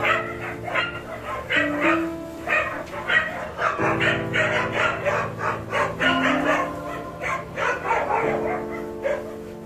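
Young puppies squealing and yipping in many short, irregular cries, over background music of slow held chords.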